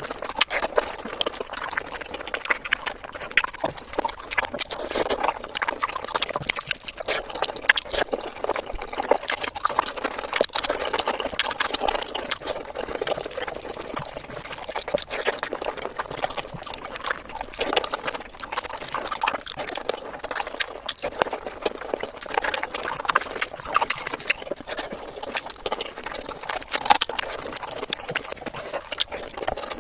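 Close-up eating sounds: a person chewing chicken biryani with wet mouth sounds and a steady run of small clicks and smacks.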